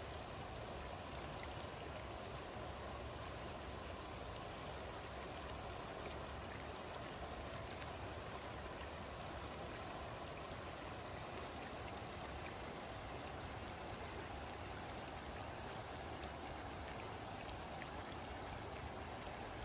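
River water spilling over a low concrete weir and churning in the white water below, a steady rushing.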